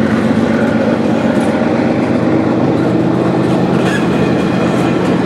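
Double-stack intermodal well cars rolling past, their steel wheels on the rails making a steady rumble with several steady whining tones over it.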